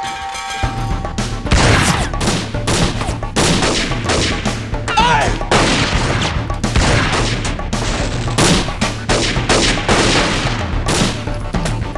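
Rapid, irregular gunfire from several handguns in a shootout, starting about a second in, over background music with a steady low bass.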